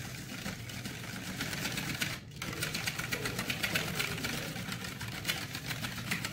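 Wire balloon whisk beating a liquid custard mix of eggs, cream and condensed milk in a stainless steel bowl: rapid, even strokes of the wires clicking against the metal, with a brief pause about two seconds in.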